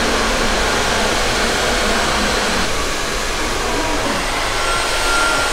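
Hair dryer blowing steadily.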